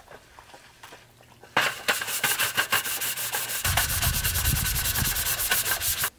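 Scrub brush scrubbing the top of a folding aluminium slat camp table in rapid back-and-forth strokes. The strokes start about one and a half seconds in and stop suddenly near the end.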